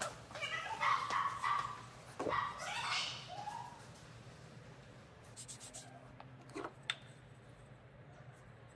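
Several high, wavering calls that rise and fall in pitch, grouped in the first three and a half seconds with a few fainter ones a little later, then a single sharp knock near the end.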